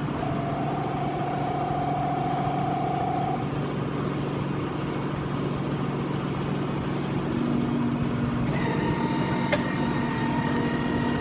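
Hydraulic press brake running, its 10 hp electric motor and hydraulic pump giving a steady hum. Steady tones come and go over it, and a higher whine joins about eight and a half seconds in.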